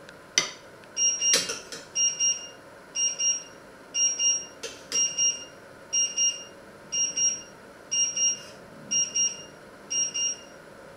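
Electronic alarm beeping, a quick high double beep about once a second, stopping shortly before the end. A couple of sharp clinks come near the start.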